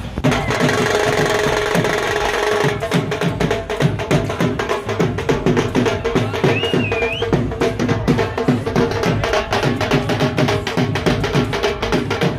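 Dhol drums played in a fast, dense rhythm, starting about three seconds in after a couple of seconds of music with held notes.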